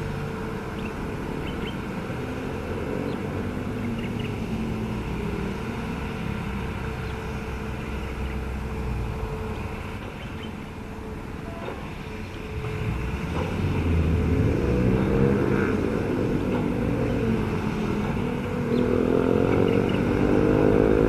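Hitachi hydraulic excavator's diesel engine running steadily, then speeding up and getting louder with a rising tone about two-thirds of the way through and again near the end as the boom and bucket are worked.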